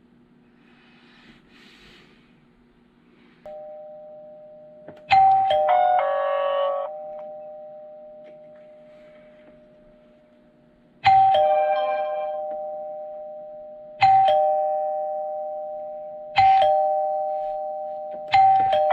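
Electronic doorbell chime of a smart video doorbell ringing about six times, each a two-note ding-dong that fades away. Twice, about five seconds in and near the end, the chime is followed by a quick run of higher notes. A steady low hum runs underneath.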